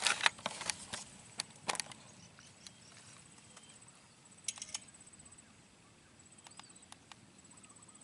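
Paddle strokes splashing and knocking in swamp water, several sharp strokes in the first two seconds. After that, quiet open-air ambience with scattered faint clicks and a faint, high, repeating chirp.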